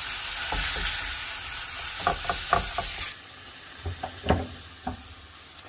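Ground beef sizzling as it fries in a stainless steel pan, with a wooden spatula scraping and knocking against the pan. About three seconds in the sizzle drops off suddenly, followed by a few clicks as a gas stove burner knob is turned.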